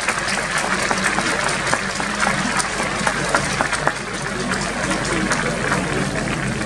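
Spectators in a crowded ballpark grandstand applauding, many hands clapping at once, a steady wash of applause.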